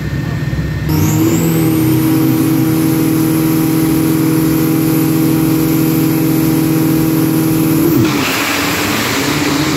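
Two drag-racing pickup trucks' engines held at high, steady revs on the start line, with a thin high whine above them. About eight seconds in, the note drops and breaks into a loud rush of noise as the trucks launch.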